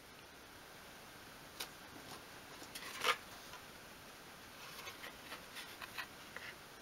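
Faint handling of a small wooden dolls-house door being picked up and moved about: a light click, a sharper knock about three seconds in, then a run of soft ticks and rustles.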